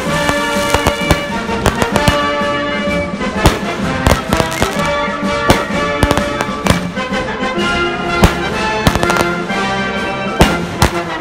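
Aerial fireworks bursting in a string of sharp bangs, irregular and often one or two a second. The bangs sit over patriotic music.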